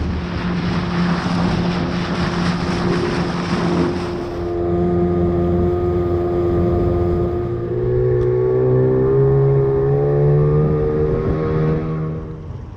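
A loud engine passes close: a rushing noise for about four seconds, then a steady engine note that rises in pitch over the last few seconds before it falls away near the end.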